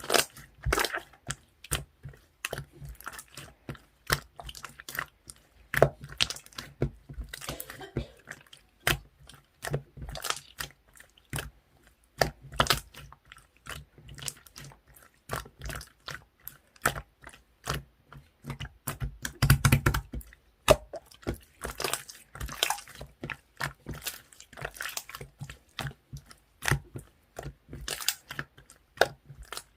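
Marbled slime being handled, pressed and stretched by hand, giving a dense run of irregular sticky clicks and squelches, with a louder cluster about two-thirds of the way through.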